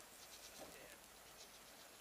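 Near silence: faint outdoor ambience, with a couple of faint short sounds about half a second and a second in.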